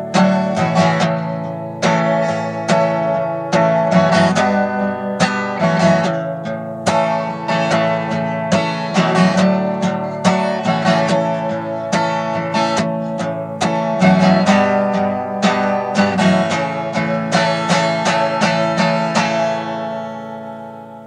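Acoustic guitar strummed in a steady rhythm over sustained chords, with no voice, fading out near the end.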